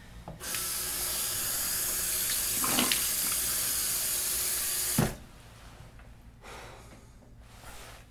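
Bathroom sink tap running full, a steady rush of water into the basin, shut off sharply about five seconds in with a knock.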